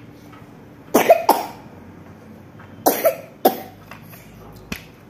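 A young child coughing: two pairs of short coughs, about two seconds apart, followed by a faint click.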